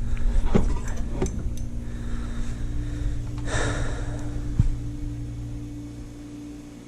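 A man breathing hard from the strain of heaving a heavy load, with a strong exhale about halfway. Several sharp knocks sound in the first second and a half and again just after the exhale, over a steady background hum.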